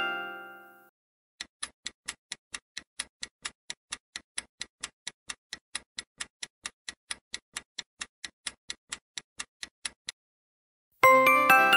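Quiz countdown-timer sound effect: clock-like ticking at about four to five ticks a second for roughly nine seconds. A louder bell-like answer-reveal chime fades out in the first second and strikes again near the end, after the ticking stops.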